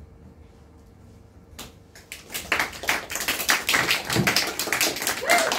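A small audience applauding, the clapping starting about two seconds in and going on densely, with a few voices calling out near the end.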